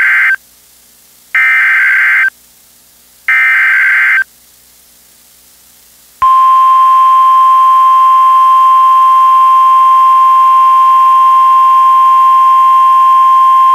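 NOAA Weather Radio Specific Area Message Encoding (SAME) header for a tornado warning: short, harsh two-tone data bursts about a second long, repeated with brief gaps of static hiss between them. After a pause, the steady 1050 Hz warning alarm tone starts about six seconds in and holds at one pitch.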